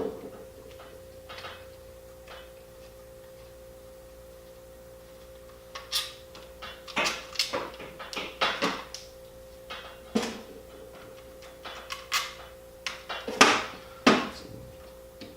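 Scattered clinks and knocks of metal drill parts being handled and fitted together during reassembly of a vintage half-inch Milwaukee drill, coming mostly in the second half, over a steady hum.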